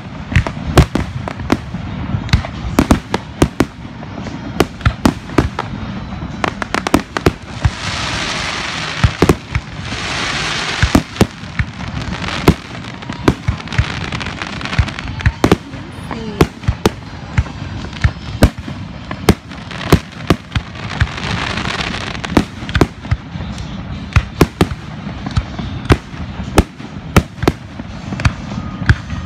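Fireworks going off in quick succession: many sharp bangs, irregular and often several a second, with stretches of dense hissing crackle about a third of the way in and again about two-thirds through.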